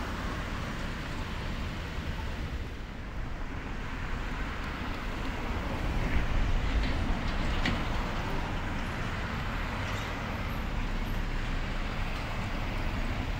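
Road traffic: cars and trucks passing on a town street, a steady low rumble of engines and tyres that swells about six seconds in as a vehicle goes by.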